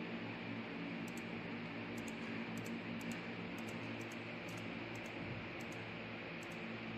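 Steady workshop room tone: a low electrical hum and hiss, with faint, irregular high-pitched ticks about twice a second.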